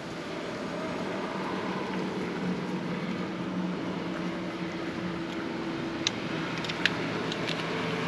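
A steady engine hum, like a vehicle going by, slowly growing louder. Two short metallic clicks a little past the middle come from an Allen wrench working a bolt on the e-bike frame.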